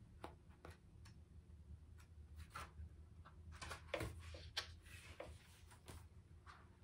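Near silence with a faint low room hum, broken by a handful of soft, irregular ticks and rustles as an oracle-card guidebook is handled and its pages turned.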